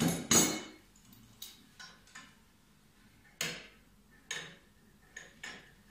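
Metal handle bars of a hand-push vegetable seeder knocking and clicking against its frame as the handle is fitted: a louder clatter at the start, then a handful of separate sharp clicks.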